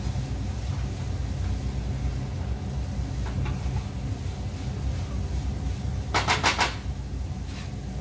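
A spatula scraping and knocking against a frying pan as vegetables are stir-fried, with faint scrapes and one quick run of loud strokes about six seconds in, over a steady low hum.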